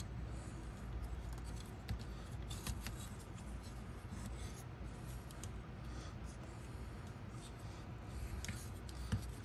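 Plastic parts of a Transformers Studio Series 65 Blitzwing figure being handled and shifted during transformation: soft rubbing with a few faint, scattered clicks.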